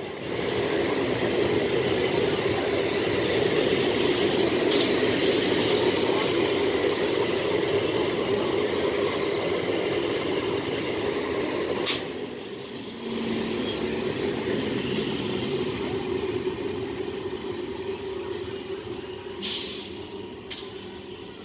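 Electric EMU local train running past at close range: a steady rumble of wheels on the rails. About twelve seconds in, the sound changes suddenly and the train sounds further off, fading away, with a short burst of hissing air near the end.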